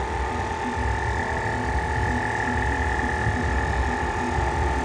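Portable 12 V tyre-inflator compressor running steadily, with a constant whine over a low, pulsing rumble.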